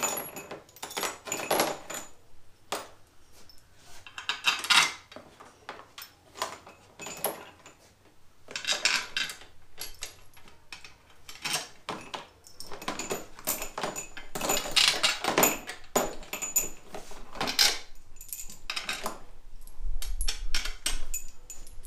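Steel bolts clinking and rattling in irregular bursts as they are handled and dropped into their holes in a Honda K-series transmission's aluminium case.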